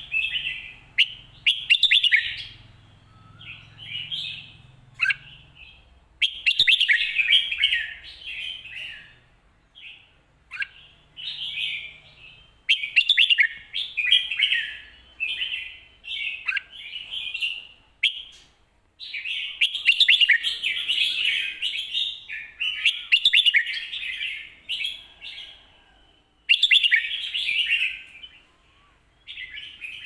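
Red-whiskered bulbul singing: loud, repeated song phrases, each a second or two long, with short pauses between them.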